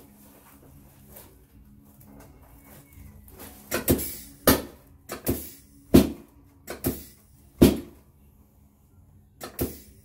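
Knocks and thumps from a padded chiropractic table during a side-lying lower-back adjustment. About eight sharp thumps start around three and a half seconds in, irregularly spaced, with two more close together near the end.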